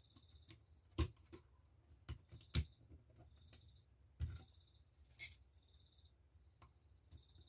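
Steel parts of a Colt 1911 pistol clicking and knocking as they are handled and pressed into place during reassembly, as about seven separate sharp clicks.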